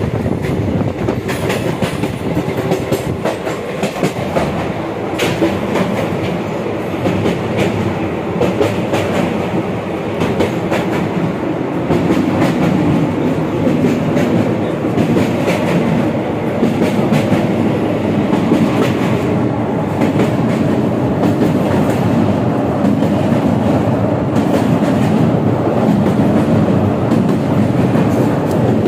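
Passenger coach of a superfast express train running at speed, heard from inside by the window: a steady rumble with the clickety-clack of the wheels over rail joints, a little louder from about twelve seconds in.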